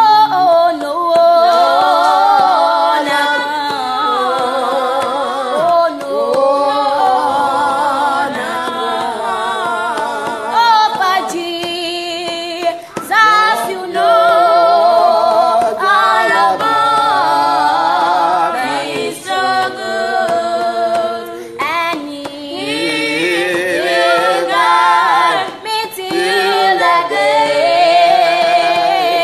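Unaccompanied worship singing: a woman's voice leads a praise song, with other voices singing along and no instruments.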